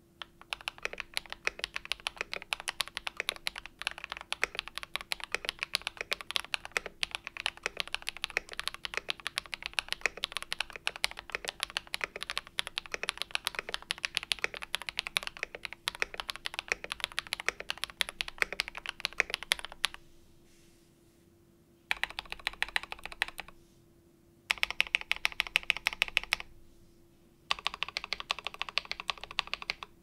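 Typing on a CIY Tester68 mechanical keyboard with an aluminium plate, PE foam and tape mod, lubed KTT Kang White v3 linear switches and Keychron double-shot OSA keycaps. Continuous typing runs for about twenty seconds, then comes three short bursts of rapid keystrokes with brief pauses between them.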